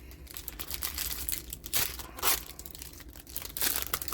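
Trading card booster pack packaging being torn open and crinkled by hand, a run of irregular rustles and rips, the loudest about two seconds in.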